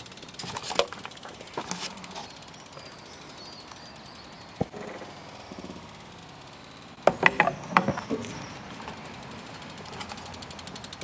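BMX rear hub freewheel ticking rapidly as the wheel turns, with a quick cluster of loud clattering knocks about seven seconds in.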